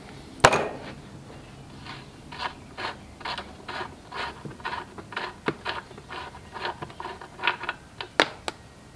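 Oil drain plug being unscrewed by hand from a Kohler K301 cast iron engine's crankcase. A sharp clack about half a second in, then short scraping strokes at a steady two to three a second, and two sharp clicks near the end.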